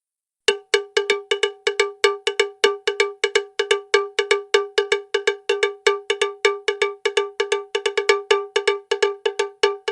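Cowbell clanking rapidly and steadily, a clean single-pitched clank about five times a second, starting half a second in, with no other sound behind it.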